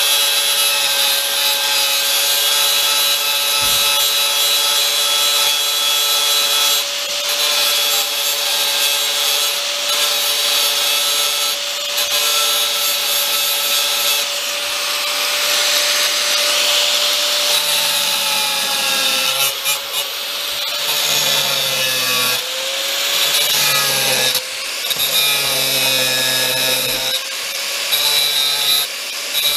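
Electric angle grinder with a cut-off disc cutting into a metal stock pot: a steady high motor whine over the hiss of the disc on metal. In the second half the whine sags in pitch and recovers several times as the disc bites and eases off.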